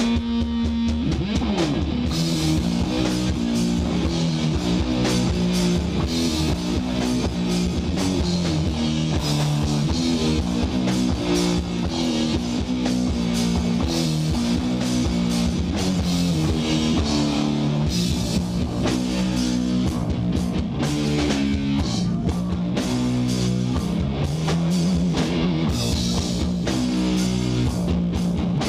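Live doom metal band playing: distorted electric guitar and bass riffing over a drum kit, with a falling slide about a second in.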